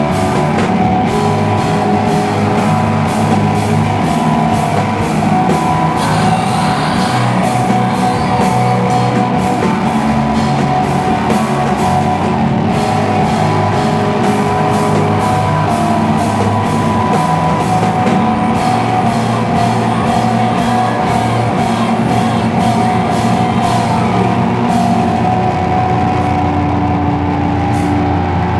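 Live slowcore / noise rock band playing: loud, dense distorted guitars over a steady drum-kit beat.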